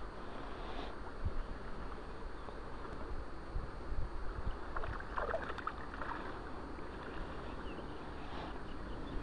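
River water flowing and lapping right by the microphone, a steady rushing wash, with a brief louder patch about five seconds in.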